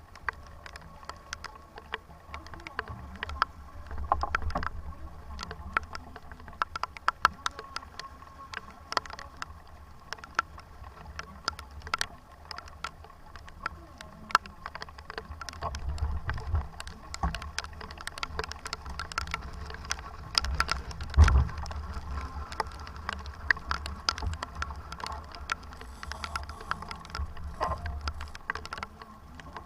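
Sailboat under way in strong wind and rain: wind rumbling on the microphone, swelling and easing, with many scattered sharp clicks and taps and one louder knock about two-thirds of the way through.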